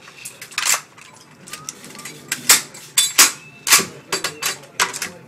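Two M240 machine guns being taken apart by hand at speed: a quick, irregular run of sharp metallic clicks and clacks as parts are unlatched, pulled off and set down on the table, loudest in the middle of the stretch.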